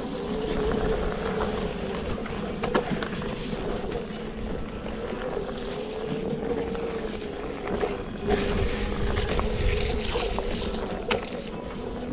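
Electric one-wheel board's hub motor whining, its pitch wavering up and down with speed as it rolls along a dirt trail. Wind noise on the microphone runs underneath, with a couple of sharp knocks from the board over the ground, one about three seconds in and one near the end.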